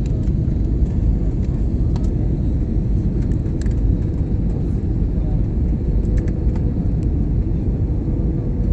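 Steady low rumble of a passenger airplane's cabin in flight: engine and airflow noise, with a faint steady hum.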